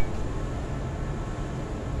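Steady low rumbling noise with no distinct pitch, running evenly throughout.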